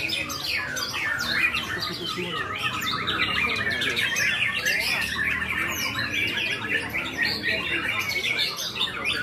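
Several caged white-rumped shamas (murai batu) singing at once, a dense, unbroken stream of fast, varied song phrases.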